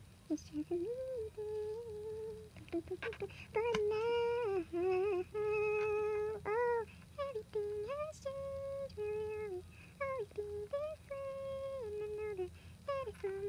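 A woman humming a tune to herself, unaccompanied, holding notes and sliding between them, with a few light clicks in between.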